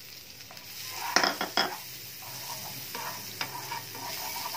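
Butter sizzling as it melts in a hot frying pan while a spatula scrapes and spreads it around. Two sharp clicks of the spatula against the pan a little after a second in are the loudest sounds.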